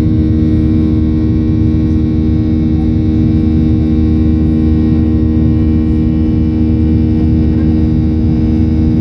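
CFM56-7B26 turbofan of a Boeing 737-800 at climb power, heard inside the cabin: a steady low rumble with a stack of steady buzzsaw tones from the fan above it.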